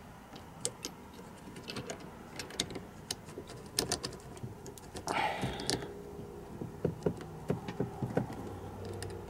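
Small irregular plastic clicks and taps as fingers push and twist a 194 LED bulb and its reflector into an overhead map-light socket, with a short rustling hiss about five seconds in.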